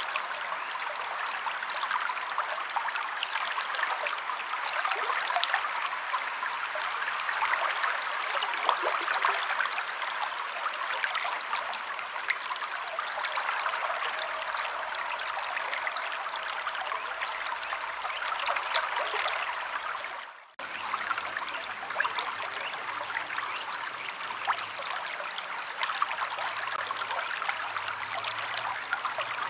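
River water flowing and trickling steadily. Faint short high bird calls come every few seconds. The sound briefly drops out about twenty seconds in, then resumes.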